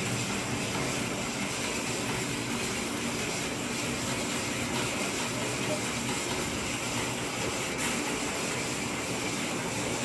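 Steady background hiss with a faint low hum underneath, unbroken, and one small click about eight seconds in.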